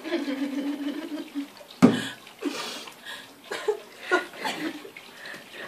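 Women giggling and stifling laughter with mouthfuls of water: a steady closed-mouth hum for the first second or so, a sudden sharp noise about two seconds in, then short bursts of muffled giggling.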